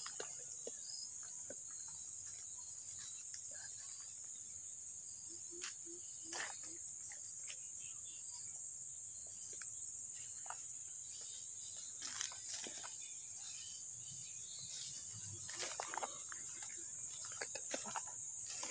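Steady, high-pitched chorus of insects such as crickets or cicadas, with scattered footsteps and rustles in dry grass and leaf litter.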